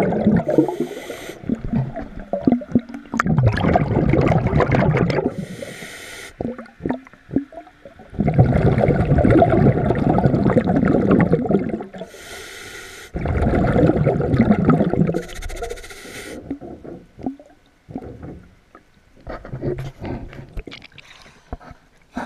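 A person breathing underwater, about four breaths: a short high hiss on each inhale, then a longer rumbling gurgle of exhaled bubbles. From about three-quarters of the way in it gives way to quieter water splashing and lapping at the surface.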